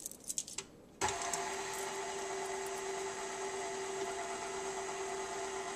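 A few light clicks, then about a second in a KitchenAid stand mixer switches on and runs steadily, its motor humming with a steady whine as the flat beater turns in the stainless steel bowl, mixing melted butter and vanilla.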